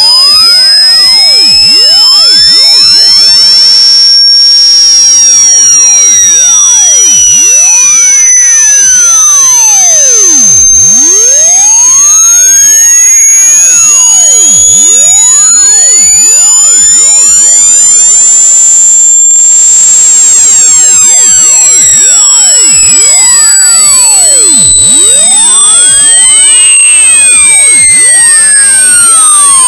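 A single piercing high-pitched electronic tone, boosted to the point of harsh distortion, rising slowly and steadily in pitch.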